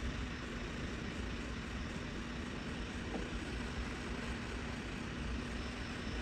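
Heat gun blowing steadily: a constant rush of hot air with a low hum, heating a circuit board to melt the solder holding a USB port.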